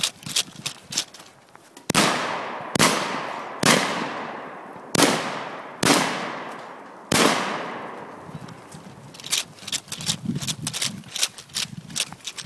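Six handgun shots, each with a long echoing tail, fired about a second apart starting about two seconds in. Before and after the shots, quick running footsteps on dirt.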